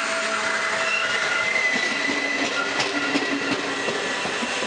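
Trenord passenger coaches rolling past close by, with a steady rumble of wheels on rail and thin, high-pitched wheel squeal over it. A single sharp click comes a little under three seconds in.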